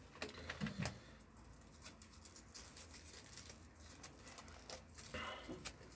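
Faint handling sounds: small clicks and rustles of materials being handled by hand, a few slightly louder ticks near the start and again about five seconds in.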